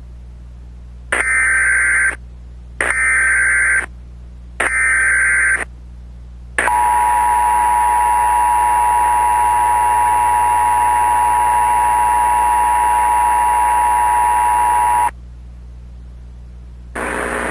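Emergency Alert System alert tones: three one-second bursts of screeching SAME digital header data, then the two-tone EAS attention signal held steady for about eight and a half seconds before it cuts off suddenly.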